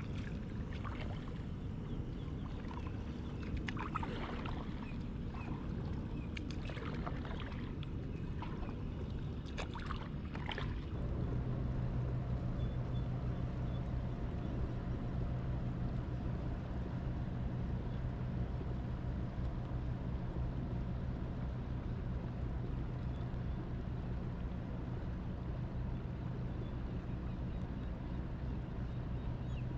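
A boat motor starts running about eleven seconds in and holds a steady low hum over water and wind noise. Before it starts there are only scattered short noises over the water.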